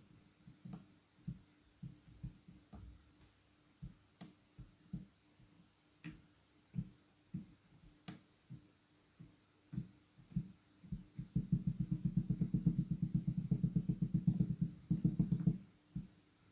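Kinetic sand being worked by hand or tool: scattered soft, low squishes and pats. About eleven seconds in, these give way to a fast run of many quick, soft crunching pulses that lasts about four seconds and is the loudest part.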